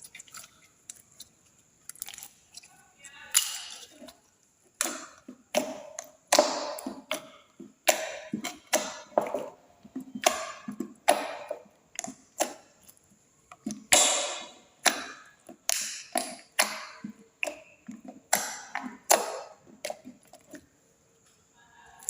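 Clear slime with glitter being squeezed and folded by hand: a run of short, sudden squishes and pops, sparse for the first few seconds and then about one or two a second.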